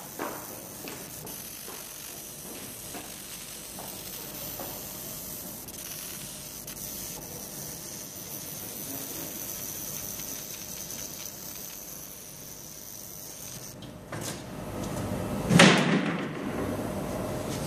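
Fiber laser marking machine with automatic feeder at work: a steady hiss with a thin, high, steady whine, which stops about 14 seconds in. A louder noise then swells up, loudest about a second and a half later, and eases off near the end.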